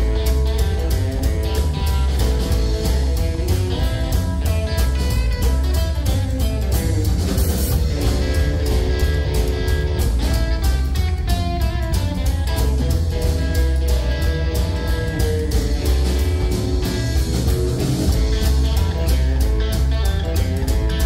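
Rockabilly band playing an instrumental passage: electric guitar over upright double bass and a drum kit keeping a steady beat.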